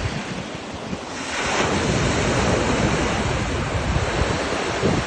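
Ocean waves breaking on a sandy beach, the surf noise swelling about a second in as a wave crashes and washes in, with wind buffeting the microphone.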